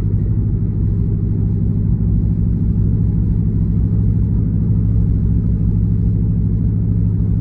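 Dodge Charger R/T's 5.7-litre Hemi V8 with the catalytic converters removed, running at a steady cruise with a low, even exhaust drone.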